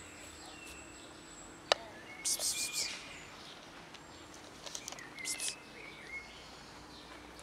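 Small birds chirping outdoors, with a single sharp knock about two seconds in and short hissy bursts of sound around three and five seconds in.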